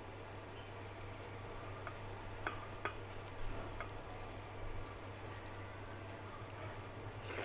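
Fingers mixing rice and dal on a plate: soft wet squishing with a few small clicks and taps, over a steady low hum. A sharper click comes at the very end.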